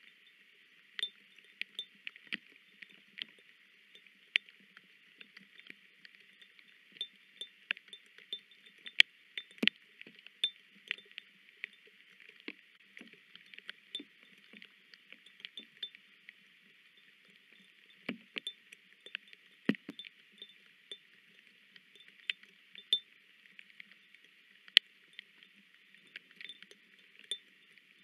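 Raindrops dripping onto the nest camera's housing. They make irregular sharp ticks and taps, a few each second, some much louder than others, over a faint steady hiss.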